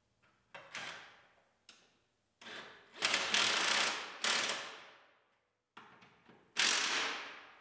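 Ratchet wrench clicking in several short runs as bolts are run down, likely those of the starter solenoid onto the apron. The longest run lasts about a second near the middle, and the last comes near the end.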